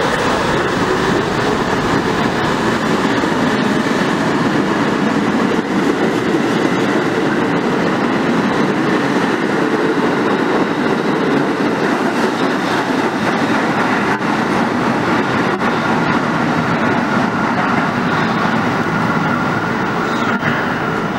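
R68A subway train pulling out of the station, its motors and wheels making a loud, steady running noise.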